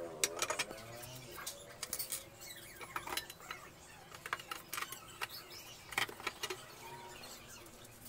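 Scattered light clicks, taps and clinks of steel table-frame parts, brackets and tools being handled and set against a wooden tabletop, at irregular moments with the sharpest clicks about half a second, three seconds and six seconds in.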